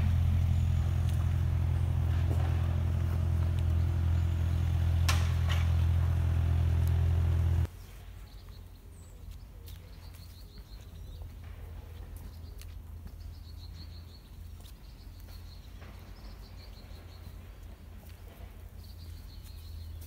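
Heavy diesel engine of construction machinery, likely the excavator on site, running steadily for the first eight seconds or so, then cutting off abruptly. After that, small birds chirping in short high trills every few seconds over quiet woodland.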